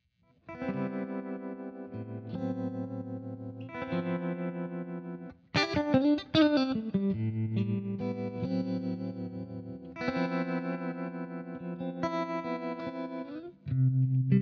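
Electric guitar played through a J. Rockett Revolver vibe/boost pedal: sustained chords with a pulsing, wavering vibe modulation. A quick, louder run of picked notes comes about six seconds in, and a new low chord is struck near the end.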